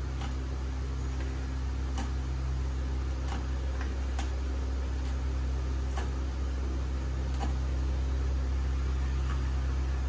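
A steady low electrical hum like a running appliance motor, with light irregular clicks about once a second as a small metal tool taps a small steel bowl while green chillies are cut up.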